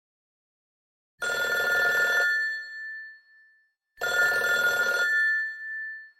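An electric bell rung in two bursts of about a second each, a fast rattling strike with its tone ringing on briefly after each burst.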